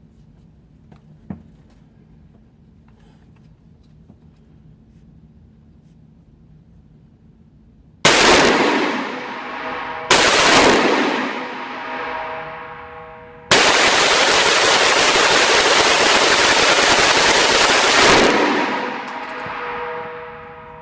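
AR-15 pistol with a 7.5-inch barrel firing: two loud reports about two seconds apart, then a rapid string of shots running together for about five seconds. The rifle is running a standard carbine buffer spring.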